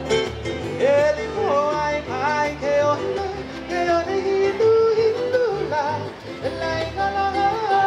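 Background music: a melody that slides and bends between notes over a steady accompaniment.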